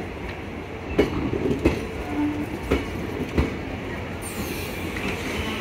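Passenger coaches of a departing express rolling past at low speed, their wheels clanking over rail joints about once a second over a steady rumble, with a brief squeal about two seconds in.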